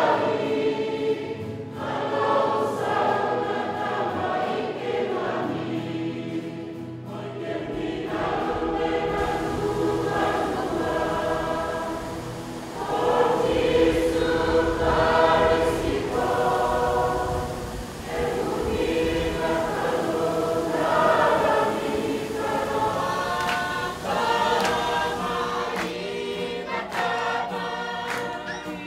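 A choir singing as background music.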